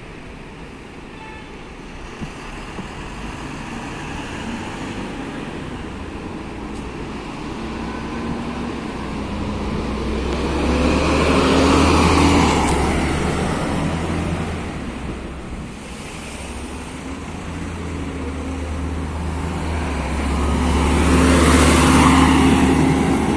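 Diesel engine of a Mercedes-Benz O405GN2 articulated city bus running as the bus passes close by, with a steady low hum. It grows louder twice, peaking about halfway through and again near the end.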